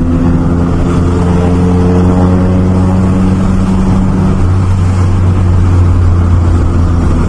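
Vehicle engine running at steady revs while driving, heard from inside the cab as a loud, even, low drone.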